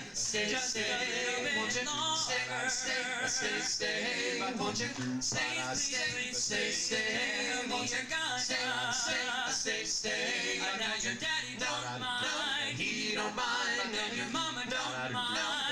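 Male vocal group singing a 1950s doo-wop song in harmony, with vibrato on the held notes.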